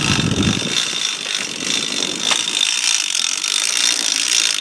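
A fishing reel's clicker ratcheting in a steady fast buzz as line pays out with the boat's drift.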